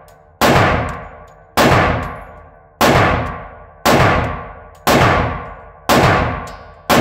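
Glock 20 pistol firing 10mm rounds in a slow, steady string: seven shots about one a second, each followed by a long ringing echo.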